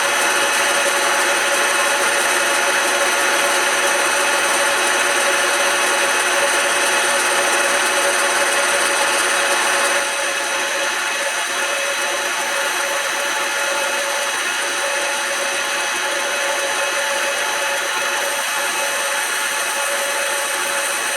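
Smart and Brown model L metal lathe running with a steady whine while a cutting tool scrapes wood off a spinning file-handle blank in a steady hiss. About halfway through the cutting noise drops a step and stays lower.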